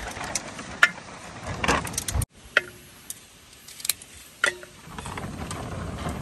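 A curved sickle blade slicing small tubers, the pieces dropping into a steel bowl with sharp clicks; twice a piece strikes the bowl with a short metallic ring.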